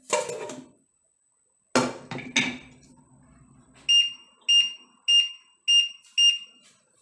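A few knocks, then five short, high electronic beeps, a little under two a second, from an appliance's beeper.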